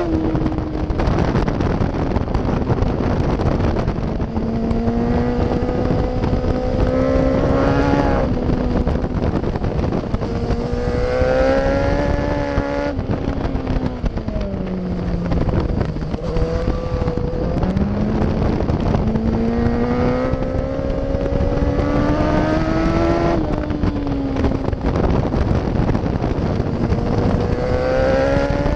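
Yamaha FZ1's inline-four engine at track pace, its pitch climbing and falling with the throttle and breaking briefly at gear changes, with a deep dip about halfway through as it slows for a corner before climbing again. Heavy wind rush runs under it.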